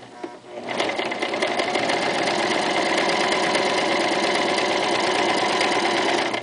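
Toyota FSG325 sewing machine with a walking foot fitted, stitching at a steady speed: a fast, even needle clatter that starts about a second in and stops near the end.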